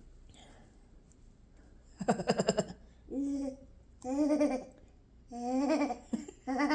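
A toddler babbling: a quick giggling burst about two seconds in, then four short held vocal sounds, each on a steady pitch, as he imitates sounds made to him.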